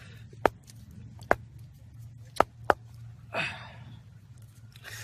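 Four sharp, separate knocks at irregular spacing as something is struck or forced by hand in an attempt to open it, with a short breathy rush of noise a little past the middle over a low steady hum.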